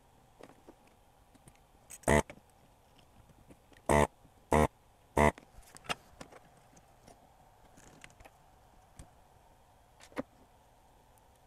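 Four short, loud bursts from a desoldering tool pulling molten solder off circuit-board joints to free old capacitors. One comes about two seconds in, then three in quick succession over the next few seconds, followed by a few light clicks and taps.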